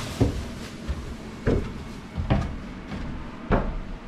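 A few irregular knocks and thumps, four in all, over a low steady rumble, like handling or footfalls on the boat's fibreglass interior.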